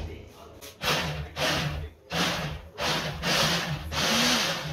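Small electric mini chopper, a press-top motor head on a plastic bowl, blending mango pulp with milk and sugar: it runs in several short pulses with brief gaps, then runs steadily from about four seconds in.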